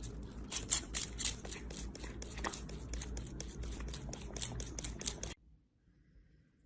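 Rapid, irregular clicking and scratching over a low hum, cutting off suddenly about five seconds in.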